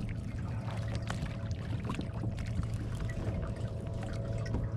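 Water sloshing and trickling against a kayak hull, with many small clicks and knocks throughout.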